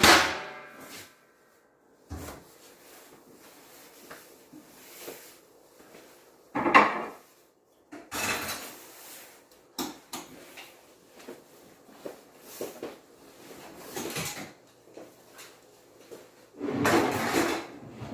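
Household handling noises: a sharp knock with a brief ring at the start, then scattered clatters and several louder scraping or rustling bursts.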